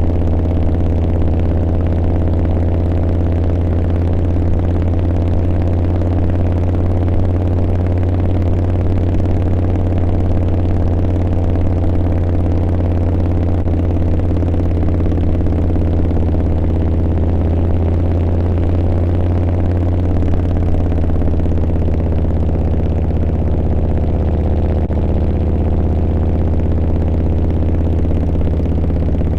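Harley-Davidson V-twin motorcycle engine running at a steady pace while riding, with a slight change in engine pitch about two-thirds of the way through.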